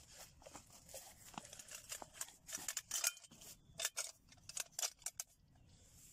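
Handling noise as a cup is worked out of a fabric pouch: a run of short, scratchy rustles and light clicks, thickest in the middle.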